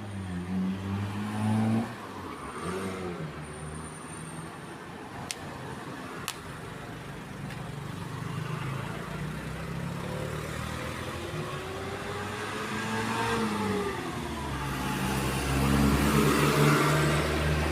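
Busy road traffic: several vehicles pass one after another, their engine notes rising and falling as they go by and change speed, over steady tyre and road noise. One vehicle passes loudest near the end.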